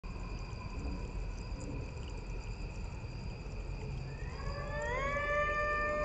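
A pack of coyotes begins howling about four seconds in, several voices rising in pitch together and then holding long notes. Before that there is a steady chorus of night insects.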